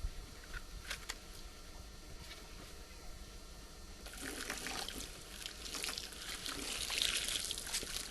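Hot water being poured into a container, starting about halfway through and growing fuller before it eases near the end. Before it there are only a few faint clicks.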